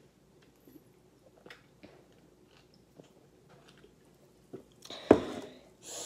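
A person gulping a drink from an aluminium can, with faint swallows and small clicks. About five seconds in there is a sudden loud thump, followed by brief rustling.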